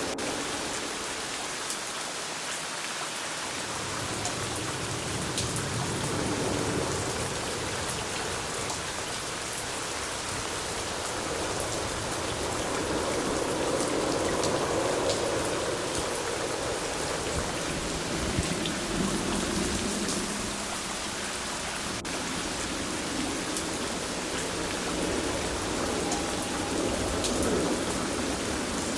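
Steady rain falling, with scattered individual drops ticking and a slow rise and fall in intensity.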